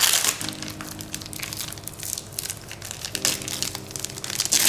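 Plastic cling film crinkling and crackling as gloved hands peel it off a sous-vide-cooked salmon roll, with a louder burst of crinkling at the start and again near the end. The film clings a little from the cooking heat.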